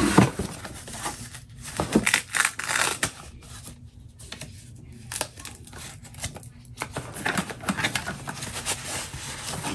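Cardboard box handled and lifted off the router, with a loud knock of cardboard at the start, then a thin foam wrapping sheet crinkling in irregular bursts as it is peeled off the router.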